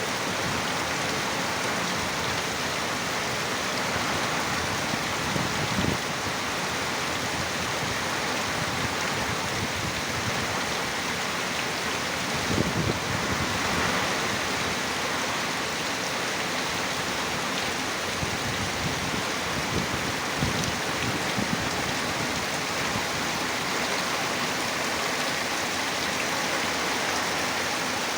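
Heavy rain pouring steadily on a mangrove forest, with strong wind gusting three times as brief low rumbles.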